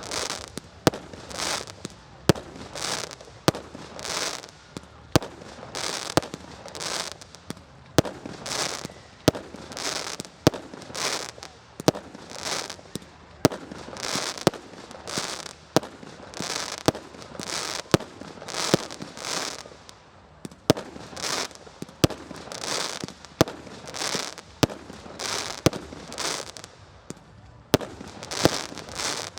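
Firework display: a steady run of sharp bangs, about one a second, each trailed by a brief hiss.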